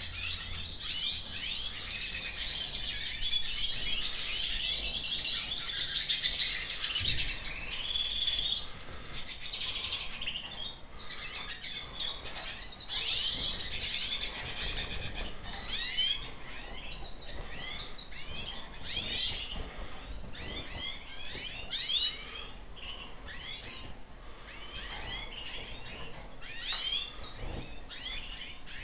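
Many caged Eurasian siskins twittering and chirping together, a dense high chorus for the first half that thins out into separate quick chirps and trills later on.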